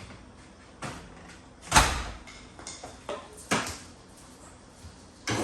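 Several separate sharp knocks and clunks of tools or gear being handled. The loudest comes nearly two seconds in and another about a second and a half later. Right at the end a motor starts up with a rising whine.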